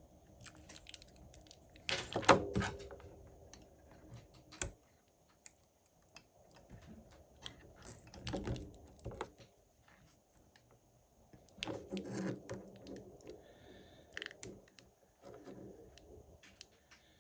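Small clicks, taps and rustles of hands handling small phone parts and tools, in irregular bursts, the loudest about two seconds in, again around eight seconds and around twelve seconds.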